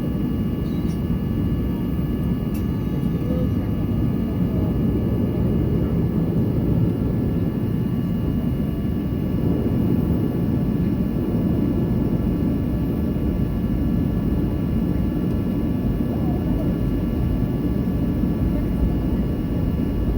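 Boeing 737-800's CFM56 jet engines running steadily at idle, heard from inside the cabin: a constant low rumble with a few faint steady whining tones above it.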